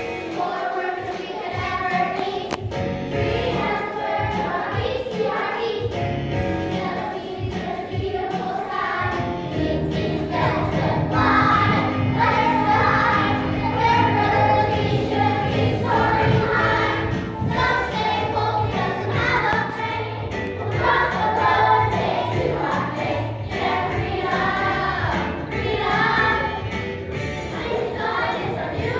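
A group of children singing a song together with instrumental accompaniment, loud and continuous.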